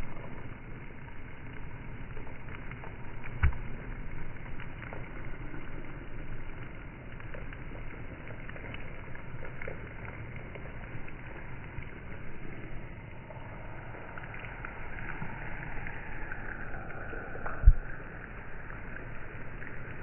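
Steady rain falling on a wet street, with wind buffeting the microphone as a low rumble. Two short thumps cut through it, one a few seconds in and a louder one near the end.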